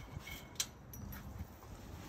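Faint rubbing of a cloth rag wiped over the trailer tongue's metal, with one sharp light click about half a second in.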